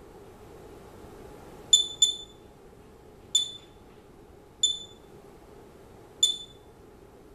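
Homemade Geiger counter's buzzer giving short high beeps at irregular intervals, five in all, two of them close together about two seconds in; each beep is one count from the Geiger-Müller tube as it assays a kitchen-dust sample carrying radon decay products. A faint steady hum sits underneath.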